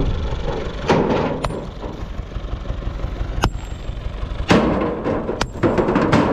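Farm tractor engine idling in a steady low rumble, while rocks are loaded into its steel trailer: several loud clatters and a few sharp clanks that ring briefly as stone strikes the metal bed.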